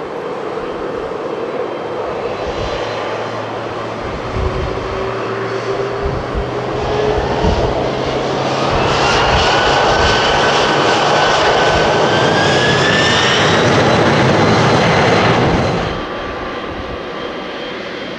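Airliner jet engines running, with a whine that rises in pitch and grows louder through the middle, then cuts off abruptly near the end, leaving a lower steady engine noise.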